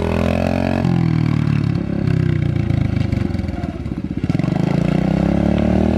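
Kawasaki KLX110 youth dirt bike's small single-cylinder four-stroke engine pulling away under throttle. Its pitch climbs, drops sharply at a gear shift about a second in, wavers as the throttle eases around four seconds in, then climbs again near the end.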